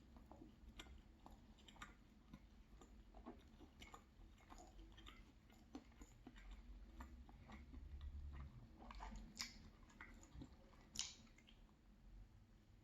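Close-up chewing of an almond croissant: soft irregular mouth clicks and squishes, with a couple of sharper crisp bites near the end.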